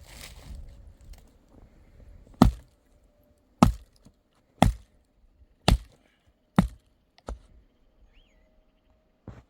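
Wood being chopped: five heavy blows about a second apart, then a lighter one and a last one near the end.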